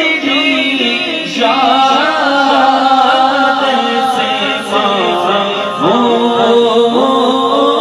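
Unaccompanied male voice singing a naat into a microphone in long, drawn-out melodic phrases, the pitch bending and held on sustained notes.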